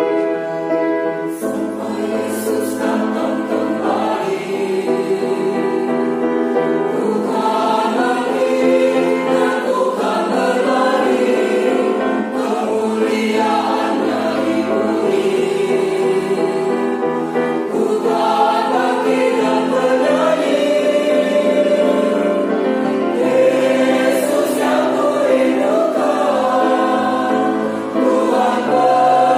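A choir singing, holding long chords that shift slowly from one to the next.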